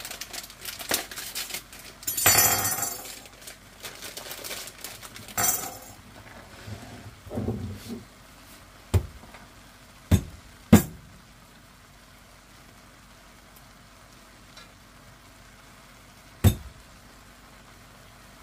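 A plastic bag of pecan nuts crinkling and rustling as it is handled, with two louder rustles. Then come a few sharp, separate clinks of kitchenware, the last one well after the others.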